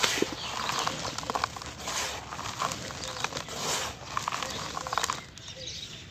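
Soft, dry cement being crushed and crumbling, a steady run of small crackles and pattering bits.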